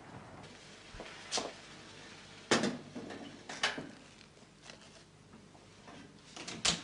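Kitchen clatter: a handful of sharp knocks and clinks, about a second apart, as things are handled and set down at a kitchen counter. The loudest comes about two and a half seconds in.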